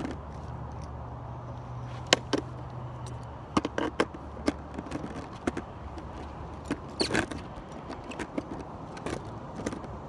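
Irregular metallic clicks and taps of a skate tool working the axle nuts on a skateboard truck while the wheels are being changed, with keys on a lanyard jangling. A low hum runs underneath for the first several seconds, then fades.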